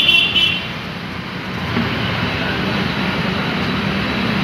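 Steady street traffic noise, with a brief ringing clink of stacked steel tumblers being handled right at the start.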